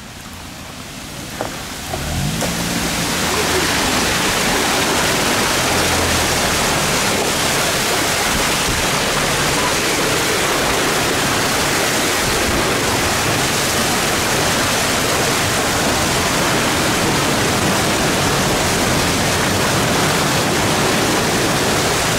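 Steady rushing hiss of floodwater being churned and sprayed as a car tows a wakeboarder through a flooded street. It builds over the first few seconds as the car picks up speed, then holds steady.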